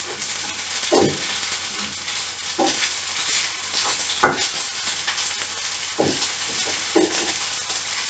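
Macaroni frying in a hot frying pan, stirred with a wooden spatula: a steady sizzle with about five scrapes and knocks of the spatula against the pan, a second or two apart.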